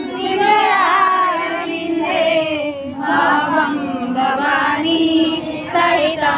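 A group of women singing a devotional aarti hymn together.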